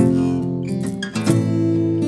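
Acoustic guitar strummed with a wooden finger shaker worn on the strumming hand: the shaker's stainless steel beads add a shaken rattle to the strokes. One chord is struck at the start and another just over a second in.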